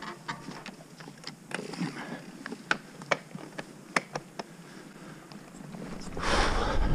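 Scattered light clicks and knocks, then a rush of wind and tyre noise that builds over the last second as the mountain bike gets under way.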